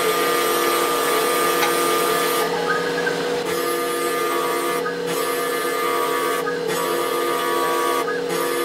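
Spindle and stepper motors of a 3040 CNC mill running with a steady whine while a small end mill cuts a row of louvre slots into a wooden blank. The cutting hiss breaks off for about a second two and a half seconds in, then briefly about every second and a half, between slots.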